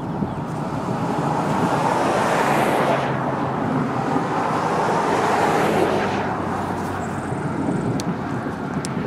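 Wind buffeting the microphone in two long gusts over a steady low rumble.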